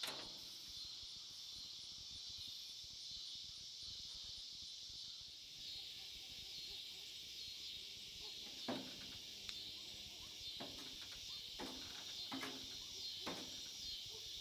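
Steady high-pitched chorus of crickets and other insects at dusk, faint, with a fast ticking higher up during the first few seconds. In the second half come about five short, sharp knocks a second or so apart.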